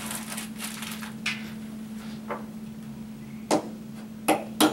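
Small hardware being handled, then a hammer tapping a compression dowel into the end of a furniture board: three sharp strikes, the first about three and a half seconds in.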